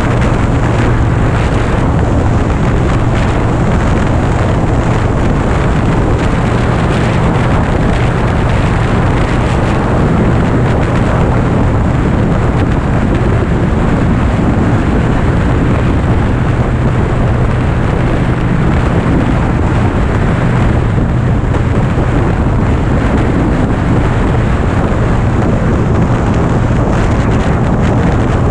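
Harley-Davidson Dyna Street Bob's air-cooled V-twin engine running steadily at highway cruising speed, its exhaust note holding an even pitch, under a constant rush of wind on the microphone.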